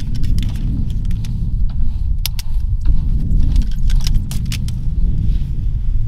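Strong wind buffeting the microphone with a steady low rumble, over irregular sharp clicks and clinks of camping gear being handled while a tent is pitched.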